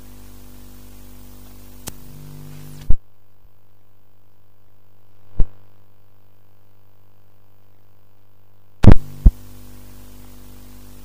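Steady electrical mains hum with a few loud clicks. About three seconds in, most of the hum drops out for nearly six seconds, leaving only a faint low hum, then it comes back with two clicks near the end.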